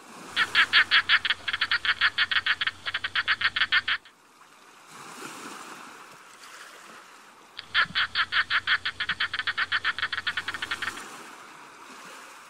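Hermit crab chirping: two runs of rapid, evenly spaced pulsed chirps, about eight a second, each run lasting about three and a half seconds, with a soft hiss in the pause between them.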